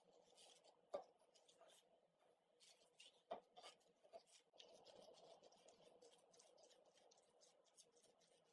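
Near silence, with faint scratching and two small clicks, about one and three seconds in.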